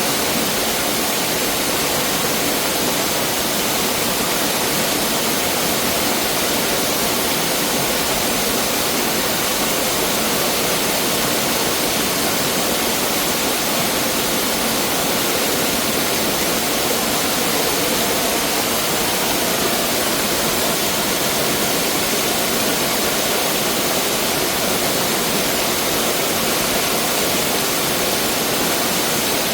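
Valley stream water rushing over rocks, a steady, dense splashing.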